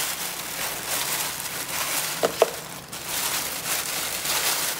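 Plastic takeaway food packaging rustling and crinkling as the lunch is handled and unpacked, with two brief squeaks about two seconds in.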